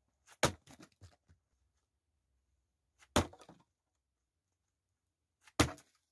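Three sharp knocks of firewood, about two and a half seconds apart, each followed by a few lighter knocks.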